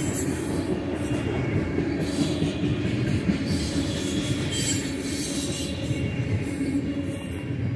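Loaded covered hopper grain cars rolling past: a steady rumble of steel wheels on the rails, with some high wheel squeal.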